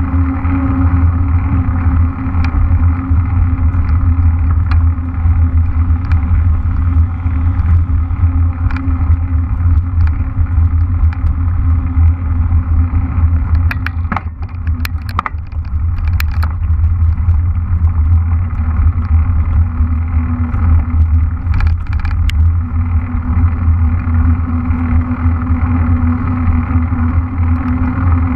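Wind rumbling on an action camera's microphone while a mountain bike rolls along, with a steady hum from its tyres on asphalt. The hum drops away on a leaf-covered dirt stretch, where a few sharp clicks and knocks come from the bike, and it returns once back on pavement near the end.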